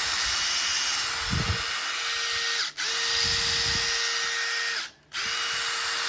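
Makita DTD153 18V brushless cordless impact driver running freely with no load, a steady whine without hammering. It stops briefly twice and starts again as the trigger is released and pulled.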